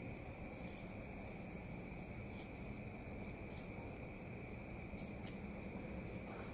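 Steady chorus of night insects, several high tones held without a break, with a few faint ticks as a fillet knife cuts through a fish on a plastic cutting board.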